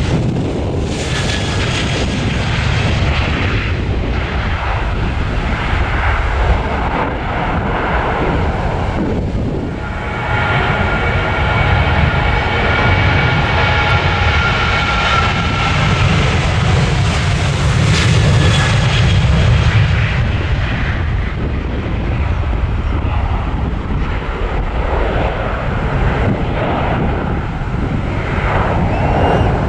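Two Boeing 737 airliners taking off in turn, their engines at take-off thrust: first a 737 MAX 8 with CFM LEAP-1B engines, then, after a short dip in level about nine seconds in, a 737-900 with CFM56-7B engines whose steady jet noise carries a high whine.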